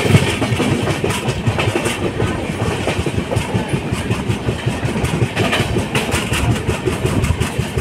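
Patna Janshatabdi Express running at speed, heard from inside a coach: a steady heavy rumble with a rapid, continuous clatter of wheels on the track.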